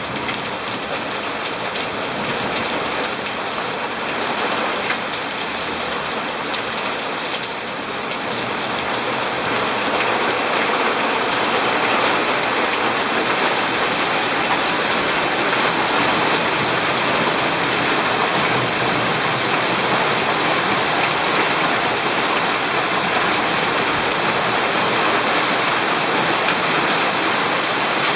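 Heavy rain pouring steadily onto pavement, lawn and leaves, growing louder about ten seconds in.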